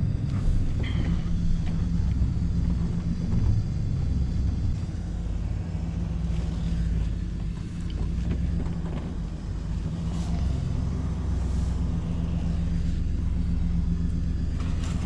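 Chevrolet 3/4-ton pickup's engine running steadily at low speed, heard from inside the cab as the truck is slowly maneuvered into a parking spot on a dirt track.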